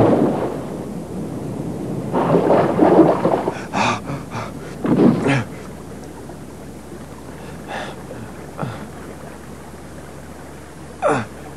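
Cartoon fight sound effects: a loud crash as water bursts up at the start, then a flurry of blows and grunts about two to five seconds in. After that only a few scattered short hits sound over a low steady background hum.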